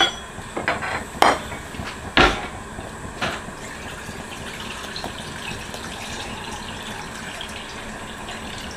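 Several clinks and knocks of bowls being handled in the first three seconds or so, then water running steadily from a kitchen tap into a glass bowl, filling it to soak rice.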